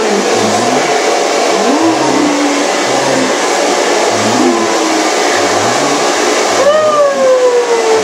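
Handheld hair dryer blowing steadily. Near the end a drawn-out whine falls in pitch over the noise.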